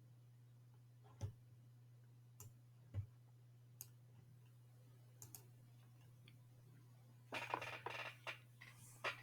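Scattered sharp clicks, a few seconds apart, then a short flurry of clicks and handling noise about seven seconds in, over a steady low electrical hum.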